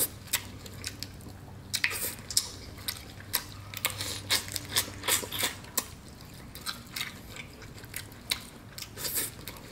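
Someone eating Cajun butter snow crab: wet chewing and smacking of sauced crab meat, with many irregular clicks and crackles as the shell pieces are handled and picked apart.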